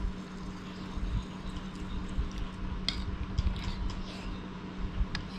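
Eating sounds: wet chewing and a few light clicks of cutlery on dishes, over a steady low hum.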